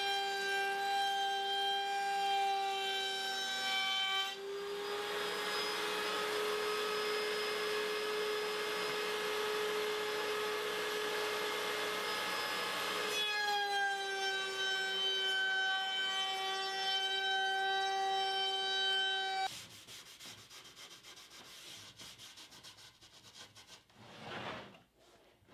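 A woodworking power tool runs with a steady whine, cuts through a board from about 4 to 13 seconds with a loud rasping noise over the whine, runs free again, and cuts off suddenly near the end.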